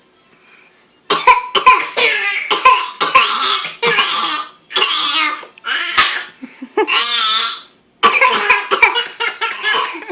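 A girl fake coughing over and over, starting about a second in, with a baby laughing between the coughs.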